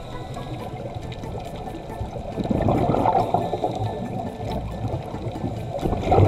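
Underwater bubbling of scuba exhaust, heard through an underwater camera, swelling into a louder burst of bubbles about two and a half seconds in and again near the end, with faint scattered clicks in the water.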